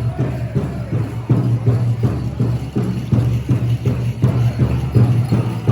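Powwow big drum struck in unison by a drum group, a fast, even beat of about three to four strokes a second.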